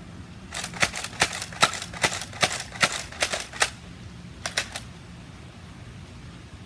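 Nerf Zombie Strike Doominator spring blaster slam-firing: a fast run of sharp plastic clacks, the loud shots about two and a half a second with fainter priming clicks between, for about three seconds. About a second later come three lighter clicks.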